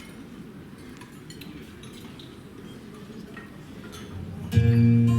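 A low background murmur with a few faint clicks. About four and a half seconds in, music cuts in suddenly and loudly on a steady held low note with overtones, like a drone.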